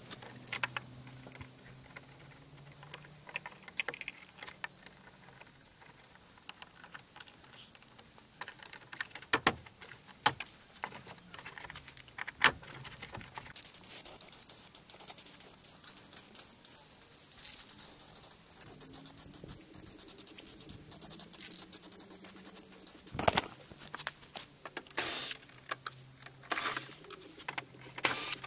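Scattered clicks, taps and light rattles of hand tools and small car parts being handled, at uneven intervals, over a faint low hum.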